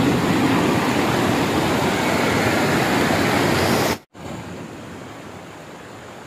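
Fast-flowing river water rushing steadily and loudly. About four seconds in there is an abrupt cut, and a much quieter steady rushing continues.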